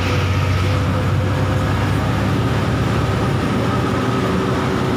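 Bus running on the road: a steady low engine and road rumble.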